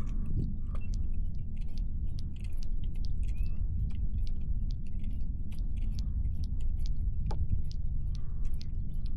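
Wind buffeting the microphone as a steady low rumble, with irregular light clicks and ticks several times a second.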